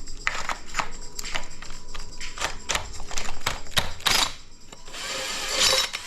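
Hand tools clicking and knocking against metal engine parts in irregular strokes while a part is worked loose on an engine being torn down, followed by a short scraping rasp near the end.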